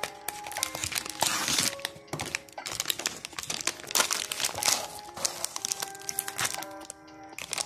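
Crinkly plastic ice cream wrapper rustling and crackling as it is pulled out of a cardboard box and handled, loudest in bursts about a second in and again around the middle.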